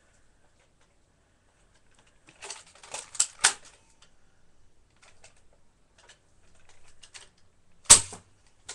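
Plastic clicks and rattles of a Nerf Maverick toy dart blaster being handled: a cluster of clicks about two and a half seconds in, then scattered light ticks, then one sharp, loud clack near the end.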